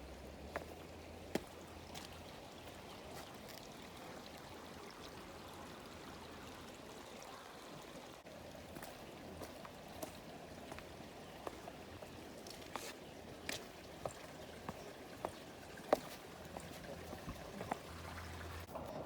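Water running steadily, like a small stream, with scattered sharp clicks over it.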